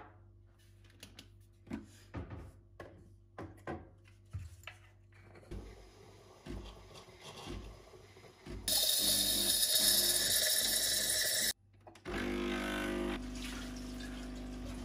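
Home espresso machine in use: a few clicks and knocks of handling, then the steam wand hissing loudly for about three seconds as it froths milk in a metal jug. After a short break the pump hums steadily while espresso runs into the glass of milk.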